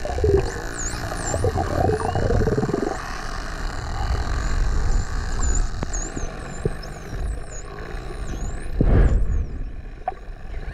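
Bottlenose dolphins heard underwater, many overlapping high whistles sweeping up and down, with buzzing pulsed calls in the first three seconds. A low rush of water runs beneath, with a louder whoosh about nine seconds in.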